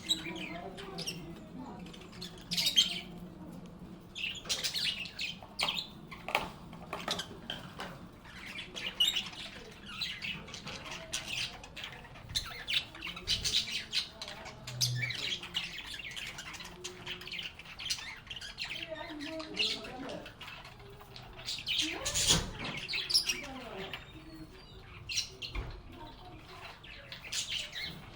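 Several lovebirds chirping and squawking in quick, sharp calls one after another, with softer chattering among them.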